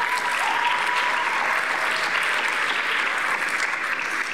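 Audience applauding steadily in a school gymnasium, with one held high note rising over the clapping in the first second or so.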